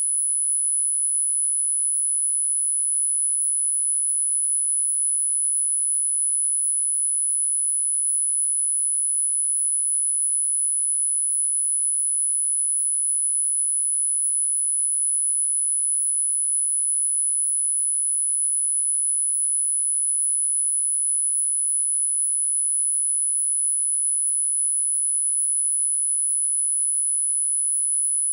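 A single steady, high-pitched synthesized sine tone at about 10 kHz, held at an even level without change: a subliminal frequency track.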